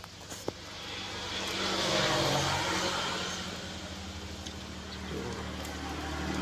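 An engine passing by in the background: its noise swells over about two seconds and then fades away.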